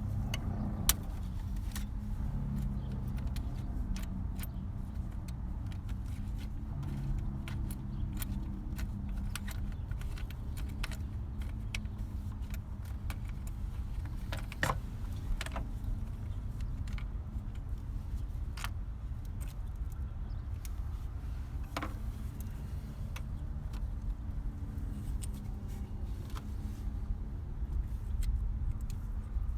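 Scattered metallic clicks and clinks of hand tools and small parts being worked on car battery hardware, a few sharper knocks among them, over a steady low rumble.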